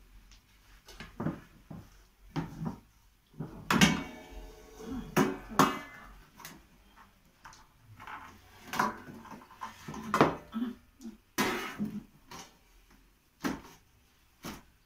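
Metal baking pans and a wooden board clattering and knocking on a countertop as a hot börek tray is set down and shifted. There are a dozen or so irregular knocks, some with a short metallic ring, the loudest about four seconds in.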